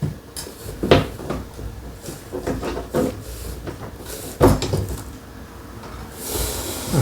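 Knocks and clinks of wall-mount hardware being handled and fitted: metal bracket, screws, washers and spacers set against the back of a TV. There are several separate knocks, then a short hiss near the end.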